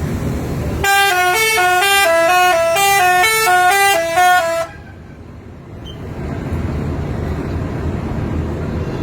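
Telolet multi-tone air horn playing a quick tune of stepping, alternating notes for about four seconds, then cutting off suddenly. Road and engine noise follows.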